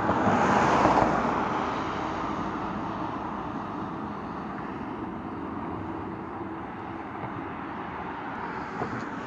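Road traffic on the adjoining highway: a vehicle passes, loudest about a second in, then a steady traffic hum.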